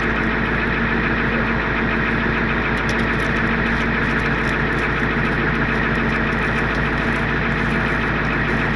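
Truck engine idling steadily, a constant even drone.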